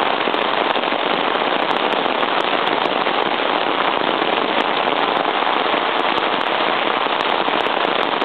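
Heavy rain pouring onto a flooded street: a loud, steady hiss of rain hitting standing water, dotted with many sharp ticks of individual drops.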